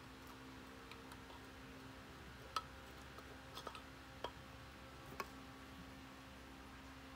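A few sharp metal clicks and clinks as pliers work small hardware off a drum-brake hub, the loudest about two and a half seconds in, over a faint steady hum.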